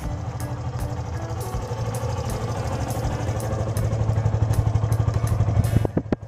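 Yamaha FZ16's single-cylinder four-stroke engine running at idle, a steady rapid low putter that grows louder about two-thirds of the way in, then drops off just before the end with a few clicks.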